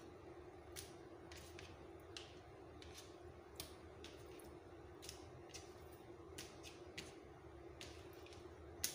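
Kitchen knife slicing raw chicken breast thin on a plastic cutting board: faint, irregular light clicks of the blade meeting the board, the loudest near the end, over a steady low background hum.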